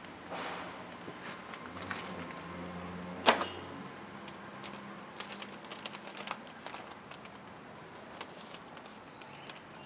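Paper rustling and handling clicks as a stack of papers is rifled through and a newspaper is pulled out and opened. One sharp knock comes about three seconds in.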